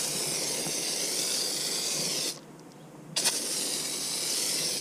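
Hand-pumped pressurized foam sprayer hissing as it sprays a fan of thick car-wash snow foam: one spray of about two seconds, a pause of about a second, then a second spray that stops near the end.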